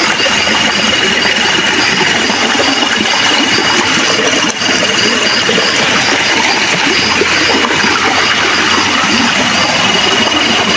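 Steady rush of a forest stream's running water, with a continuous high trill from night insects over it and a higher chirp repeating about twice a second.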